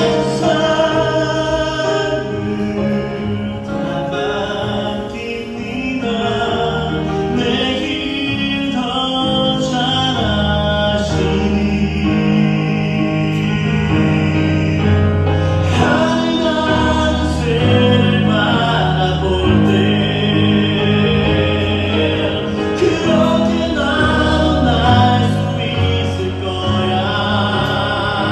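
A film song sung in Korean by a male voice over sustained instrumental backing, a slow ballad played back through a TV.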